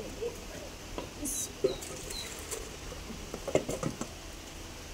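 Steel cooking pot and its metal lid knocking and clinking as they are handled and the lid is lifted off. There are a few scattered clicks, with a cluster of knocks near the end.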